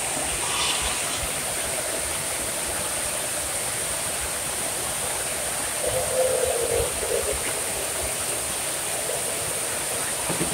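Water-play fountains and spray jets of an indoor splash pad, giving a steady hiss of falling and splashing water.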